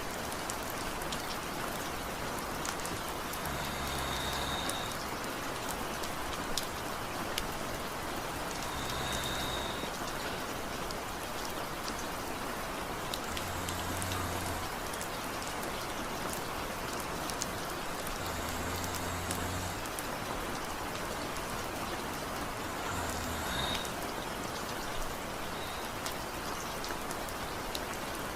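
Steady rain falling, with a sleeping man's light snores every five seconds or so, five in all: short, low-pitched breaths under the rain.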